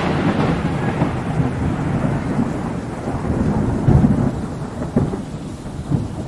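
Thunder rumbling and slowly fading, with a few low swells along the way.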